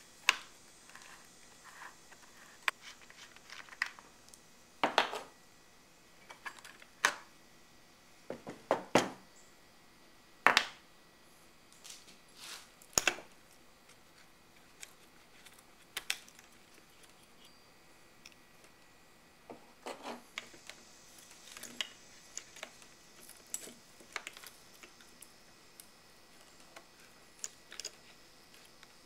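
Steel saw chain clinking and rattling in irregular clicks and a few louder knocks as it is handled and worked back around the drive sprocket and onto the bar of a small chainsaw after being thrown.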